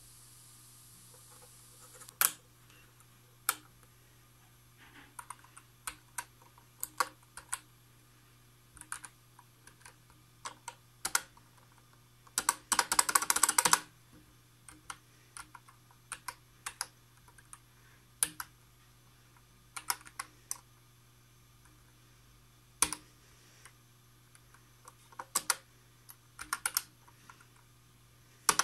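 Keys of a Sharp EL-2901PIII desktop printing calculator being pressed, irregular clicks singly and in quick runs as numbers are entered. Near the middle there is a dense rattle lasting about a second and a half.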